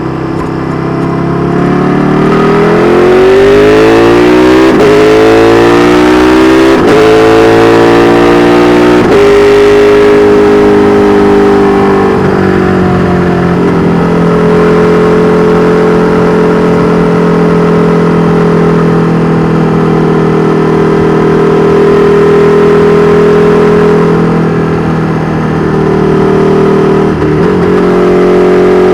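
KTM 1290 Super Duke R Evo's 1301 cc V-twin through an Austin Racing V3 Mini exhaust, pulling hard with the pitch climbing through the first nine seconds and short breaks about 5, 7 and 9 seconds in. It then holds a steady cruise, eases off briefly near the end and picks up again.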